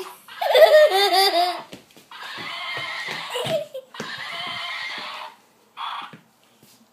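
Plush toy rocking horse's built-in sound effects: a recorded horse whinny with a wavering pitch, then two longer stretches of further horse sounds and a short blip near the end.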